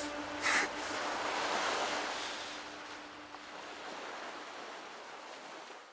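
Sea waves washing, with one brief louder rush about half a second in, fading down steadily toward the end. A faint steady hum underneath dies away about halfway through.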